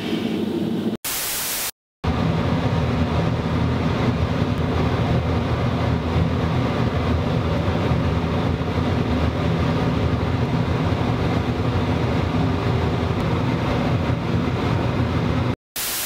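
A loud burst of video static hiss about a second in, cut off sharply, then a steady low rumbling drone with hiss over it. Near the end a second short static burst follows a sudden dropout.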